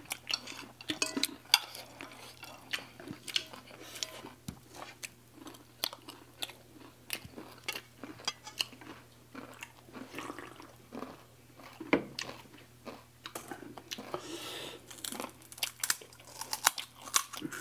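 People crunching and chewing crisp puchka (pani puri) shells and chatpate, with spoons clicking on plates in short, irregular strokes; one sharp click about twelve seconds in is the loudest.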